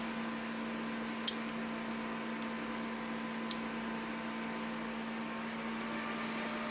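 Hand crimping tool clicking twice as it crimps an RJ45 connector onto an Ethernet cable, with a few fainter ticks between, over a steady electrical hum.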